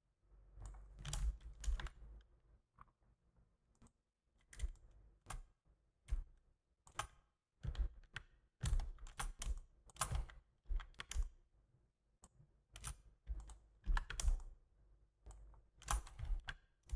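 Computer keyboard keystrokes and mouse clicks, tapping in irregular clusters with short pauses between.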